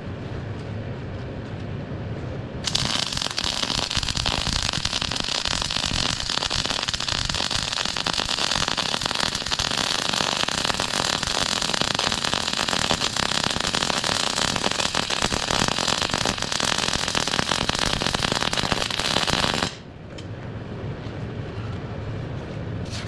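MIG welder's arc crackling steadily as a bead is laid along a steel spring perch on an axle housing. It strikes about three seconds in and cuts off abruptly about seventeen seconds later.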